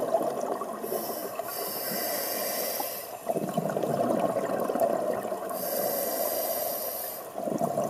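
A scuba diver breathing through a regulator underwater: two long hissing breaths, about a second in and again near the end, with a bubbling rush of exhaled air between them.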